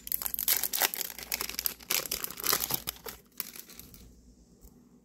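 Foil booster-pack wrapper crinkling and tearing as a trading card pack is handled and opened, for about three seconds, then stopping.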